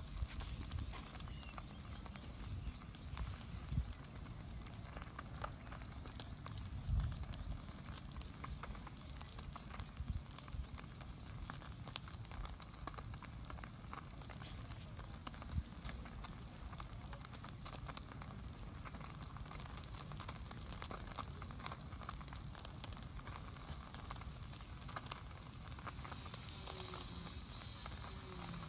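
Small wood fire crackling with scattered pops, over a steady low rumble, with a few louder dull knocks.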